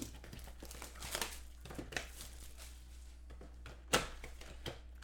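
Trading card packaging being handled and opened: a card box and pack wrappers crinkling and tearing in short rustles, with one sharp snap about four seconds in.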